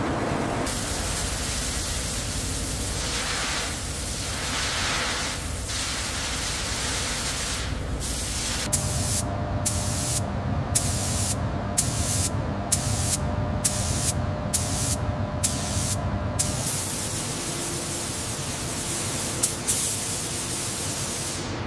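Spray gun hissing as a coating is sprayed on. For several seconds in the middle the spray cuts off briefly about once a second, as in short passes, over a low hum. Two sharp clicks come near the end.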